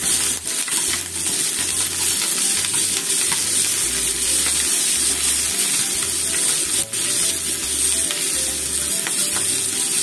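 Cabbage, onion and ham sizzling in oil in a frying pan, stirred with wooden chopsticks that click and scrape against the pan now and then.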